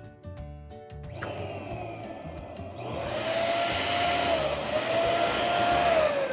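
Electric balloon pump blowing air, inflating a balloon; it gets louder about three seconds in, and a wavering tone in the airflow falls away near the end. Music plays briefly at the start before cutting off.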